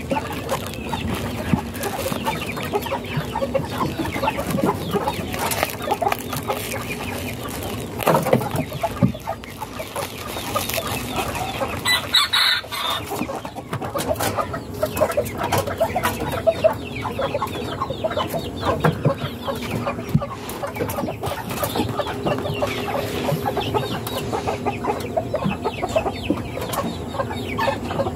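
Chickens clucking steadily in the background, with a rooster crowing about twelve seconds in. Bubble wrap crinkles up close as it is handled.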